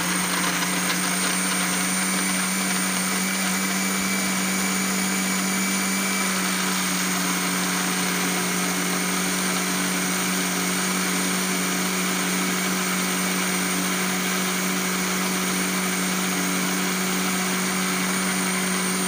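Electric countertop blender running steadily at one speed, blending chopped bananas with water and sugar into juice. The motor's hum holds an even pitch with no change in speed or load.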